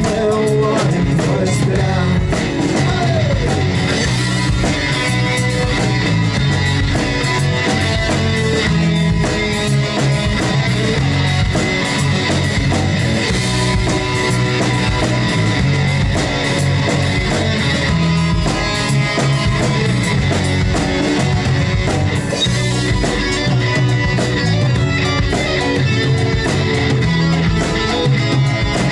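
Live rock band playing an instrumental passage: electric guitars, bass and drum kit.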